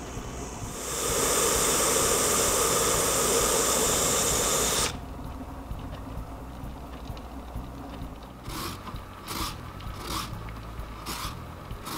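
Instant Pot pressure cooker hissing loudly as steam escapes around its float valve for about four seconds, then cutting off suddenly: the float valve has popped up and the pot has sealed to build pressure. Later, a few short rasping strokes of a lemon being zested on a rasp grater.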